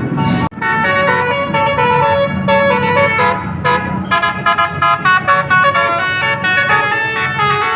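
Basuri telolet musical air horn playing a melody, its trumpets sounding stepped notes, several at once. The tune breaks off for an instant about half a second in, then carries on.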